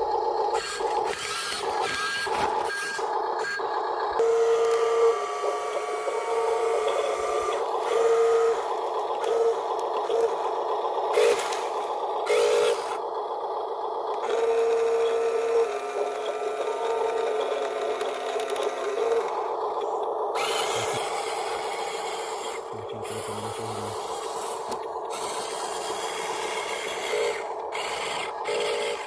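Small electric motors of remote-control toy construction machines whining steadily, with repeated short louder pulses of motor whine as the controls are worked, over scraping and rasping of gravel and dirt.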